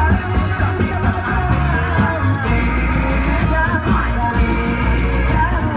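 Loud music accompanying a Reog Indramayu masked dance: a steady heavy bass with regular drum strokes under a wavering melodic line.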